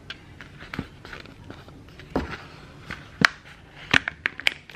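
A sheet of paper being handled and folded by hand on a stone countertop: soft rustling broken by several sharp taps and clicks as the paper is creased and pressed down, the loudest about three seconds in and again near four seconds.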